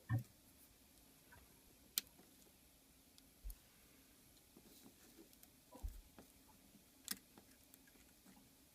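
Faint, scattered sharp clicks and light taps of small tools and parts on an iPhone 5, as the front-facing camera cable connector is worked onto its socket. Three clicks stand out: one at the start, one about two seconds in and one about seven seconds in.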